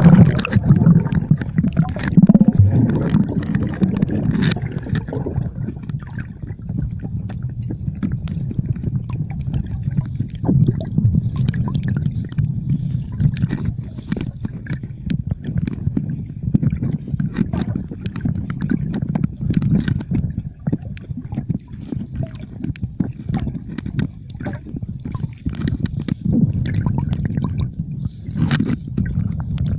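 Sea water sloshing and gurgling around a submerged or half-submerged camera: a continuous muffled rumble dotted with many small clicks, busiest in the first few seconds.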